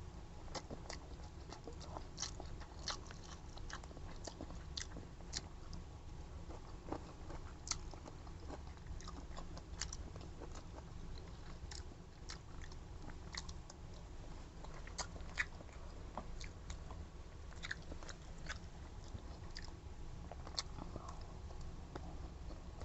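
A person chewing and biting food close to the microphone, with irregular small clicks and smacks scattered throughout.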